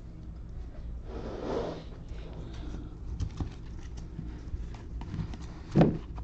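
Small handling noises at a desk: scattered light clicks and taps, a soft rustle or breath about a second in, and a dull thump near the end, over a low steady hum.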